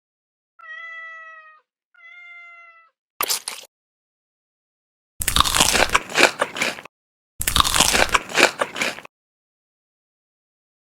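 Two short meows, then loud crunching bites and chewing of crunchy food close to the microphone in three bursts, with dead silence between them.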